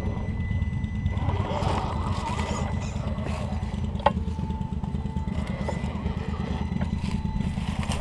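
Axial SCX10 II electric RC rock crawler driving slowly over rocks, its motor and gears whining, with a sharp knock about four seconds in, over a steady low rumble.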